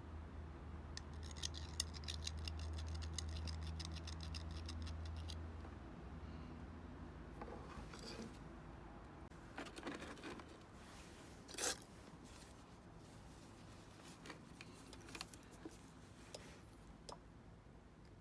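Hand tools working on a small metal circuit breaker as it is taken apart: a quick run of even clicks over a low hum for the first five seconds or so, then scattered clicks and scrapes, with one sharper click about two-thirds of the way through.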